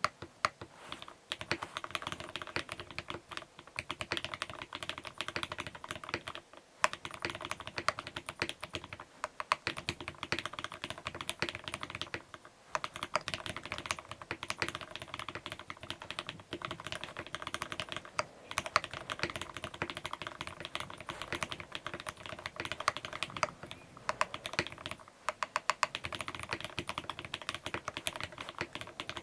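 Continuous typing on a custom mechanical keyboard with lubed vintage Cherry MX Black linear switches in a top-mounted brass plate and GMK keycaps: a steady run of keystrokes, broken by brief pauses about every six seconds.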